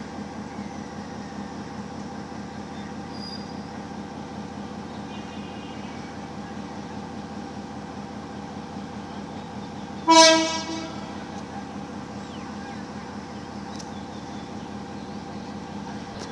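Diesel locomotive running with a steady engine drone, giving one short, loud horn blast about ten seconds in.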